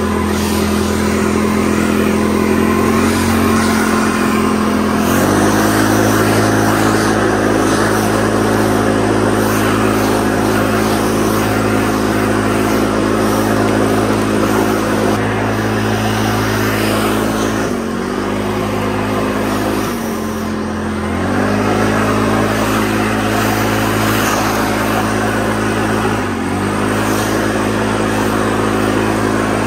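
Petrol lawn mower engine running steadily at working speed. Its pitch dips briefly a few times as it takes load.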